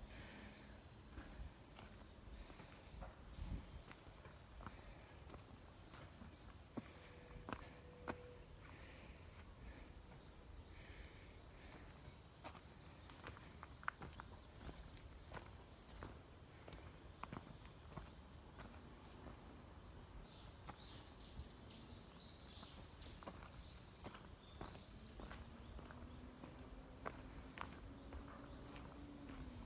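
A steady high-pitched insect chorus, with faint footsteps of someone walking.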